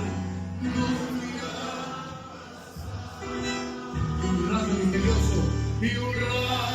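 Music with long held notes and singing.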